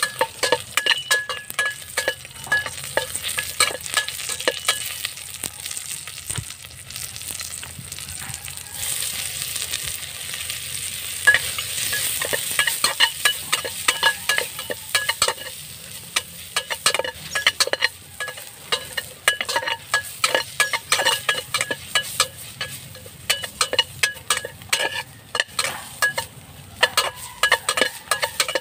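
A metal ladle stirring in an aluminium cooking pot of broth, scraping and clinking irregularly against the pot's sides with a light metallic ring. For several seconds in the middle the clinks give way to a steadier hiss.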